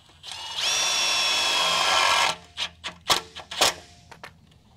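Cordless drill driving a self-tapping screw through a plastic junction box into a steel trailer tongue: the motor runs with a steady whine for about two seconds, then stops. A few sharp clicks and knocks follow.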